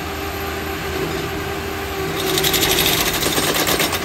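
On-track railroad spike driver machine running steadily, then about halfway through its driving head hammers a spike into a tie plate hole with a fast, rattling hammering that lasts nearly two seconds.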